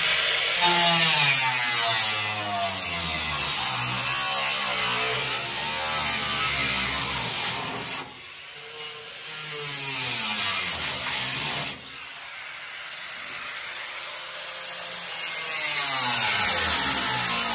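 Corded angle grinder cutting and grinding the sheet steel of a Chevy S10 pickup bed around the fender well. Its motor pitch wavers as the disc bites and eases off, with a brief letup about 8 seconds in and a drop to a lighter cut around 12 seconds before it bears down again near the end.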